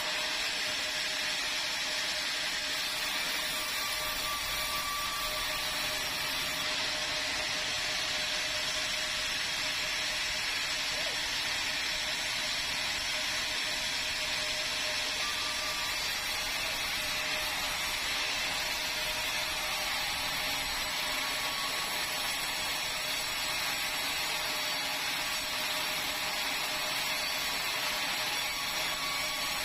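Sawmill saw running steadily with a constant whine.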